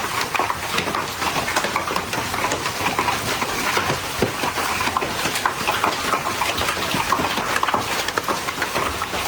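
Hail pelting down, a steady dense rattle of many small ice impacts striking surfaces.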